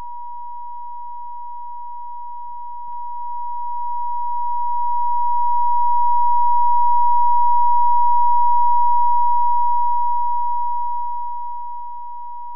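Steady 960 Hz sine tone from the PhET Sound simulation. It grows louder from about three seconds in and fades back down near the end as the simulated listener is moved close to the speaker and then away again.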